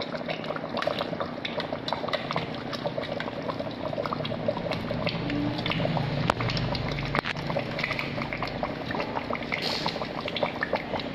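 A pot of sour soup boiling hard, with a dense, steady bubbling and popping and a few sharper clicks as chunks of coconut palm heart are dropped in.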